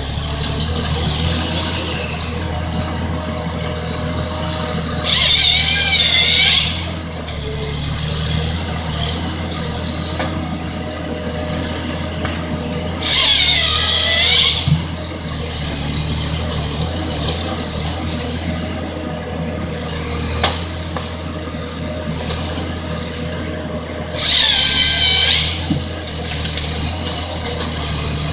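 Timberjack wheeled harvester's diesel engine running steadily while the harvester head's chain saw cuts through the stem three times, each cut a loud, high-pitched, wavering burst of about a second and a half.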